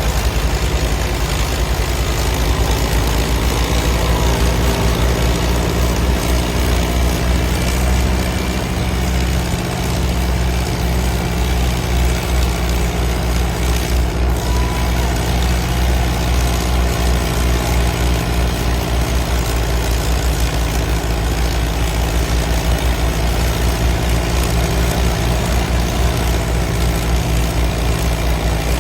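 Antique farm tractor engine running steadily at a low, heavy note, with a brief change in pitch and a small dip in level about eight to ten seconds in.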